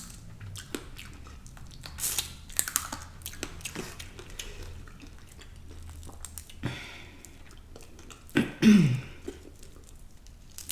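Close-miked chewing of food, with soft wet mouth sounds and scattered small clicks. About eight and a half seconds in comes a short vocal sound falling in pitch, the loudest moment.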